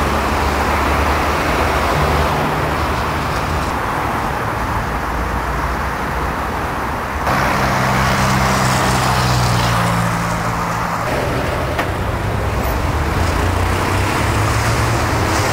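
Road traffic noise: cars driving past on a busy multi-lane city road, a steady mix of engine hum and tyre noise. The sound changes abruptly about seven and eleven seconds in, as the shot switches.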